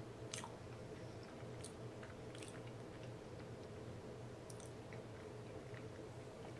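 A person chewing a sandwich close to the microphone: faint, scattered wet mouth clicks, over a steady low hum.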